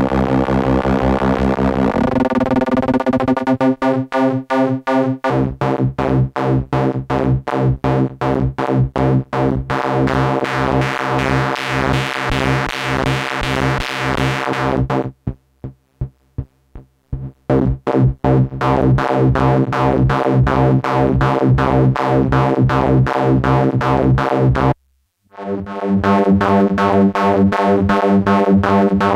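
Stylophone S2 analog synthesizer playing a buzzy, held tone chopped into a fast, even pulse, its sound shifting as its controls are tweaked. Partway through it stutters with short gaps, then cuts out briefly near the end before the pulsing tone resumes.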